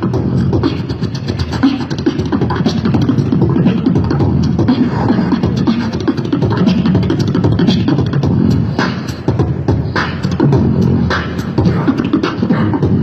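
Beatboxing into a handheld microphone, played through a portable amplified speaker: a fast, dense run of vocal clicks and beats over a heavy low bass, without a break.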